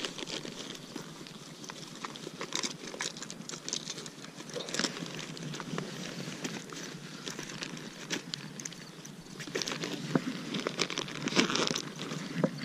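Close, irregular rustling and scuffing with scattered short clicks and knocks from shoes and clothing moving on a boat's grated deck, growing louder and busier near the end.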